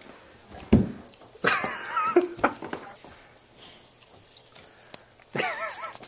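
A dog whining in short, wavering whimpers, a couple of times, with a dull thump about a second in.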